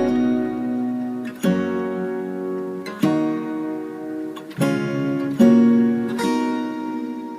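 Background music: acoustic guitar chords struck about every second and a half, each left to ring out, fading near the end.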